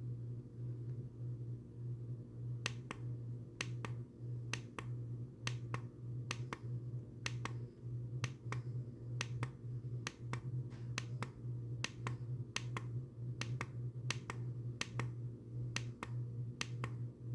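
A steady low hum with many sharp, irregular clicks over it, a few a second and often in close pairs.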